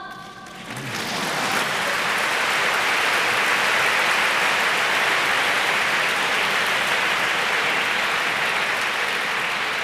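A large audience applauding. The clapping swells over the first second or so, holds steady, and starts to fade near the end.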